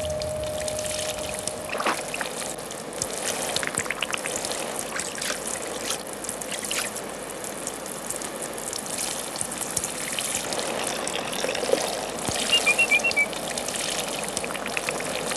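Rain falling steadily, with scattered drips and splashes. About three-quarters of the way through comes a quick run of about six taps.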